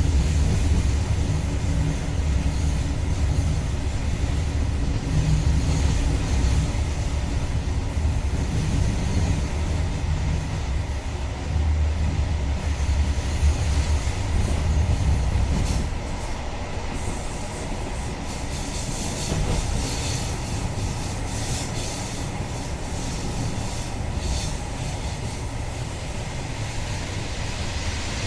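InterCity passenger train running on the track with a steady low rumble. From a little past halfway, sharper metallic rattling and clicks of wheels over rail come in.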